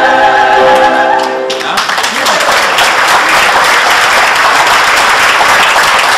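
Mixed amateur choir holding its final chord, which cuts off about a second and a half in, followed by an audience applauding.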